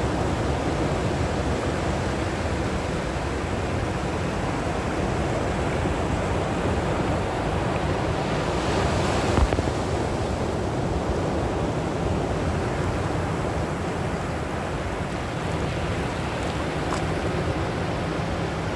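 Sea surf washing in steadily, with a wave swelling up about halfway through and a single short knock at its peak.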